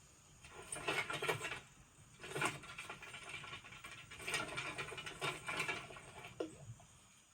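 Film sound effects: several bursts of quick, light pattering and clicking, with quiet gaps between them and one short sharp sound near the end.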